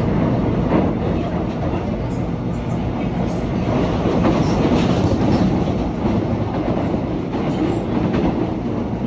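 Seoul Subway Line 1 express train running at speed, heard from inside the car: a steady rumble of steel wheels on rail with occasional light clicks from the track.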